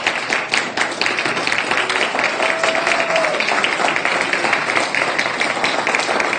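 A room of guests clapping and applauding, steady and dense throughout.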